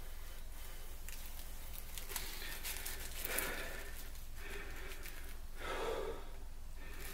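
A person blowing a series of long breaths into a tinder nest to fan a glowing bow-drill ember into flame. The breaths follow one another from about two seconds in, the strongest at about three and six seconds.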